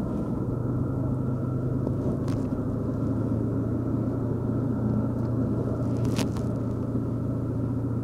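Car engine idling with a steady low hum, and two brief clicks about two and six seconds in.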